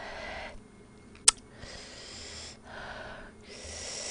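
A person breathing hard through the mouth, about four rushing breaths in and out, from the burn of very spicy fire noodles. A single sharp click cuts in about a second in.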